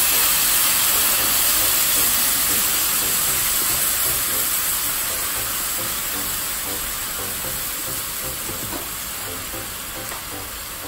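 Cooking cream poured into a very hot frying pan of sautéed mushrooms, sizzling hard and steaming. The sizzle slowly dies down as the cream cools the pan.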